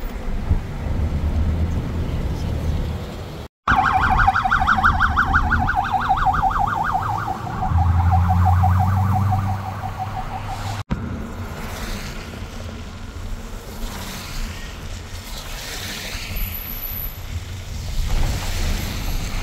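Steady road noise from a moving car, with a fast-warbling electronic siren sounding for about seven seconds in the middle. The audio drops out abruptly twice, at edit cuts.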